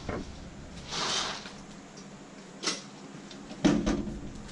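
Freezer door and ice being handled: a short rustle about a second in, a click, then a loud thump near the end.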